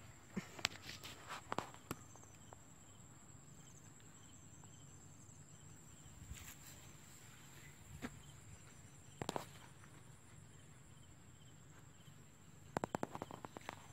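Short-handled hoe and hands digging into damp earth, short knocks and scrapes in bursts: a cluster near the start, one around the middle, and a quick run near the end. Insects chirp faintly in a repeating pattern behind.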